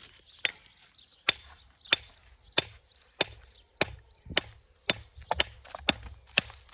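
Hammer striking stone in a steady rhythm, about ten sharp blows roughly every 0.6 s starting about a second in: stone being trimmed to shape for a wall.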